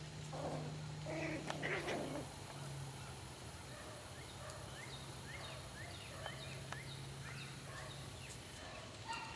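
A loud burst of rapid animal calls from just after the start to about two seconds in, followed by a string of short, high chirps.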